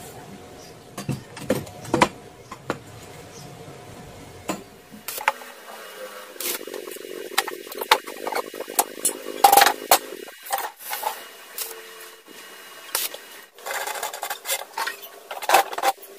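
Irregular metal knocks and clanks as square steel tubes and clamps are handled and set down on a steel workbench, with sharp separate strikes, loudest around the middle and near the end.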